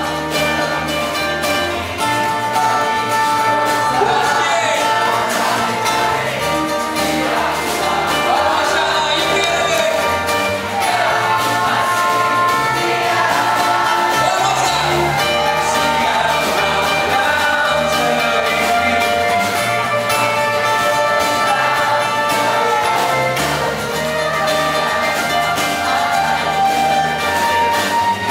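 A live band playing a song: a male lead voice singing over strummed acoustic guitars, electric bass and drums.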